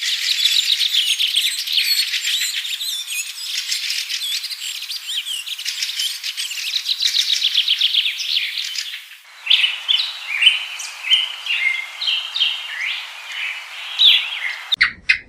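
Small birds chirping and twittering in a dense, busy chorus. About nine seconds in it changes abruptly to a sparser run of separate short chirps, and just before the end a different call of quick, evenly repeated pulses begins.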